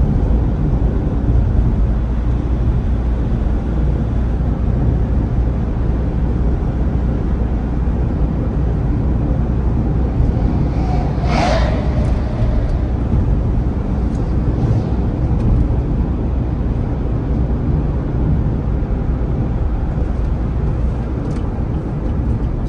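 Steady low engine and road noise of a Toyota HiAce van being driven, heard from inside the cabin. About halfway through, a brief sharper sound rises over it for roughly half a second.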